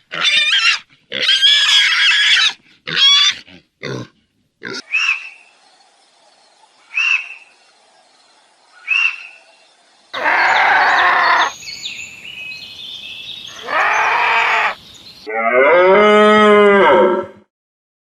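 A run of different animal calls cut one after another: loud high squeals at the start, three short chirps about two seconds apart, then a long noisy call and, near the end, a long pitched call that rises and falls.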